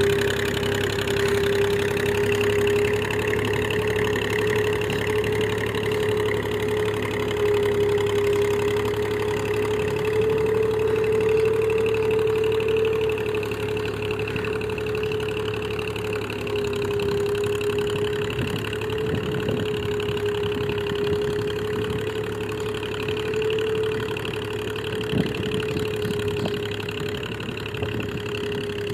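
Massey Ferguson 135 tractor engine running steadily under load while ploughing, with a steady whine over the engine note and a single sharp knock near the end.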